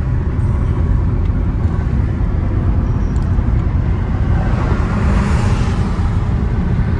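Road noise inside the cabin of a car moving at highway speed: a steady low rumble of tyres and engine, with a brief swell of rushing noise about five seconds in.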